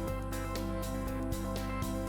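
Background music: gentle instrumental with steady plucked notes over held tones.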